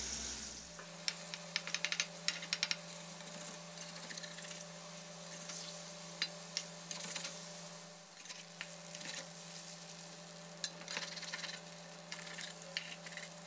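Eggs sizzling in hot oil in a metal wok, with a metal spatula scraping and clicking against the wok as they are broken up and scrambled; the scraping comes in busy spells about a second in and again near the end.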